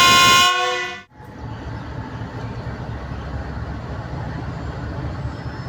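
A GE U20C diesel-electric locomotive sounds its horn in one loud blast that stops about a second in. Its diesel engine then runs with a steady low rumble as the train gets ready to pull out.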